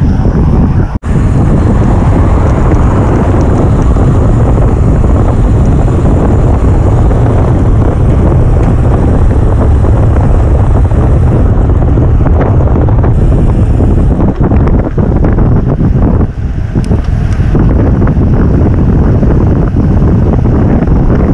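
Wind buffeting a bike-mounted action camera's microphone as a road bike rides at speed, a loud steady rumble. It drops out for a moment about a second in.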